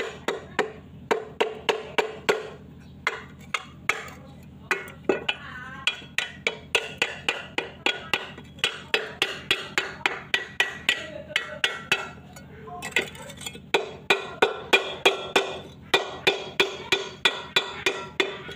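Knife blade repeatedly striking an old rusty iron hoe head to chip off caked dirt and rust: sharp metal taps about three a second, each with a brief ring, pausing twice for a moment.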